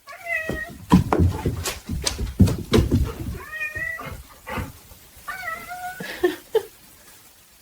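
A cat meowing three times: short calls that bend in pitch, near the start, a little past halfway and about three-quarters through. Sharp bumps and scuffling noises fall between the first two calls.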